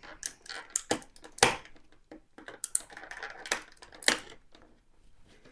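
Irregular clicks, snaps and light rustling of plastic packaging and a plastic toy horse figure being handled while its leg is freed from the fastenings that hold it in the box, with a few sharper snaps.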